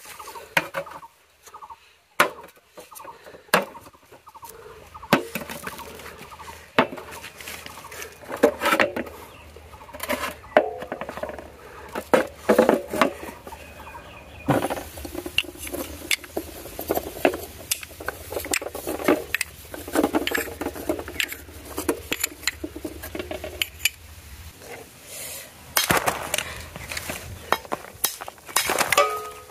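Small terracotta clay pots knocking and clinking against each other and on an aluminium tray as they are set down, a string of sharp knocks; near the end, clay pots being cracked open.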